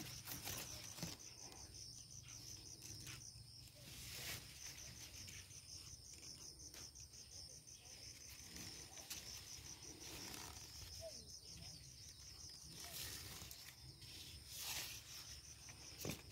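Faint insects chirping outdoors: a high-pitched trill of rapid, evenly spaced pulses that keeps going without a break. A few brief rustling sounds come through over a low background rumble.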